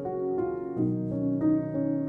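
Background music: gentle piano playing a slow run of sustained notes.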